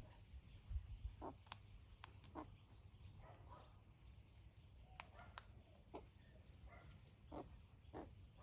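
Faint, short animal calls, a dozen or so scattered through, mixed with a few sharp clicks.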